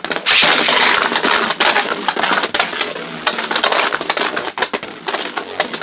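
Two Beyblade Burst spinning tops launched and battling in a plastic Rail Rush stadium: a dense, fast rattle of clicks as they spin, scrape and knock together, loudest in the first second.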